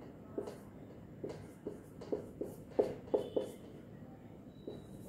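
Marker writing on a whiteboard: short, irregular taps and strokes as digits are written, with a quick cluster of the loudest taps about three seconds in.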